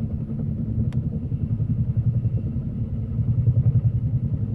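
Helicopter hovering overhead, its rotor beating in a rapid, even low pulse as it starts to climb and take the weight of the slung airplane.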